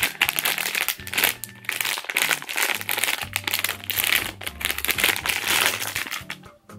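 Crinkling and tearing of a blind-bag pouch as it is pulled open by hand, a dense irregular crackle that eases off near the end, over soft background music.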